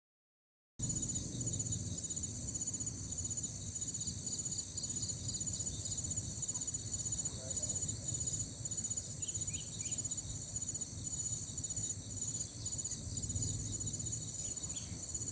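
Crickets and other insects chirping steadily in overlapping rapid pulsed trills at several high pitches, over a low outdoor rumble. The sound cuts in abruptly just under a second in.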